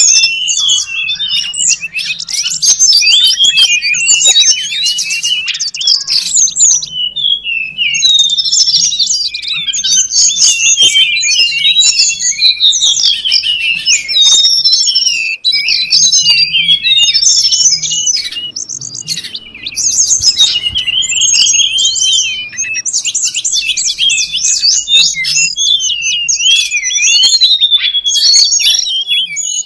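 Tledekan gunung (a Cyornis blue flycatcher) calls from a bird-lure recording: busy, unbroken chirping and twittering, many fast high notes overlapping.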